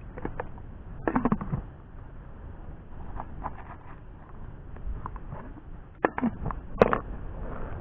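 Handling noises of fishing gear: short plastic clicks, knocks and rustles as a bait tub and a plastic handline spool are handled. A cluster of knocks comes about a second in, and there is a sharp single click near the end.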